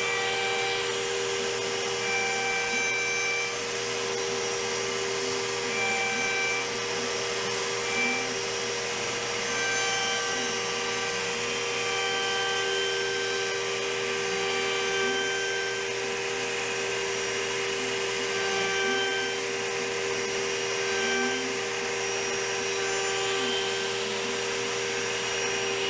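CNC router spindle with a square-cornered bit milling a padauk frame on a roughing pass, together with a vacuum running, its hose held near the cutter. Steady machine whine throughout, with higher tones that come and go every few seconds as the bit cuts.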